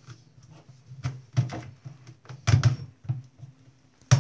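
Large plastic bottle being handled while its red screw cap is twisted open, giving irregular sharp plastic clicks and knocks, four of them loudest, over a low steady hum.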